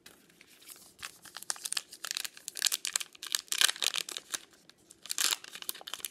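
A Heritage High Number baseball card pack being torn open by hand: the wrapper crinkles and tears in a quick run of crackles, thickest in the middle, with one sharper crack about five seconds in.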